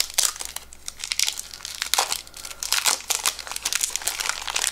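Plastic wrapper of a 1991 Topps Stadium Club baseball card pack crinkling and tearing as it is peeled open by hand, in a string of irregular crackles.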